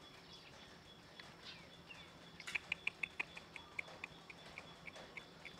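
A faint run of short, high chirps from a small animal, starting about two and a half seconds in, quick at first (about five a second) and then slowing.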